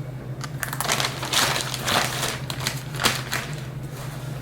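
Crinkling and crunching of packaging being worked at and pulled as someone struggles to open a takeout container that has a perforated seal.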